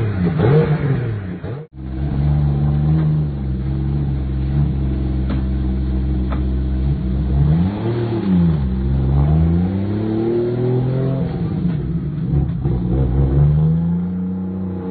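Toyota 1JZ-GTE turbocharged straight-six swapped into a Jaguar E-Type, revved in quick blips, then idling steadily after a cut about two seconds in. Around the middle it revs once, then its pitch rises twice as the car pulls away and accelerates.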